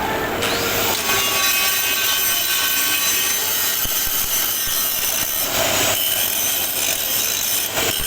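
Angle grinder running against a plate to clean its surface: a continuous loud grinding rasp with a high whine, briefly changing about six seconds in and again near the end.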